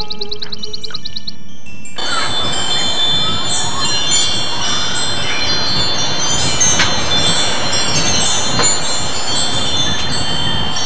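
Wind chimes tinkling continuously, many overlapping high metal tones over a steady hiss, starting abruptly about two seconds in after a wavering synthesizer chord dies away.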